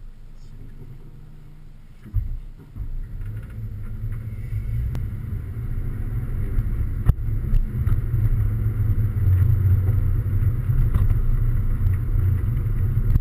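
Toyota 86/Scion FR-S's flat-four engine and road noise heard from inside the cabin as a low rumble, which grows steadily louder as the car pulls away and picks up speed. There is a knock about two seconds in.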